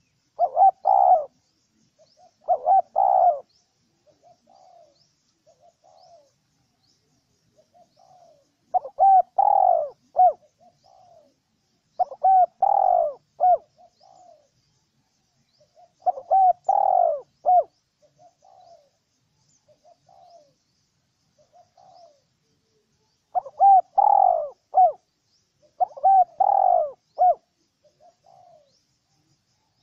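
Spotted dove cooing: seven loud phrases of several rising and falling coos, each about a second long and a few seconds apart, with fainter short coos between them.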